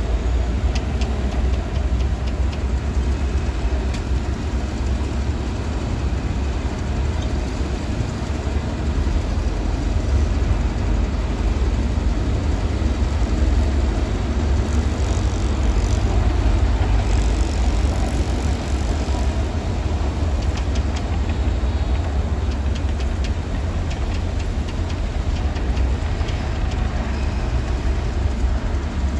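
Shantui DH17-C2 bulldozer's heavy diesel engine running steadily with a deep low rumble and faint scattered clicks.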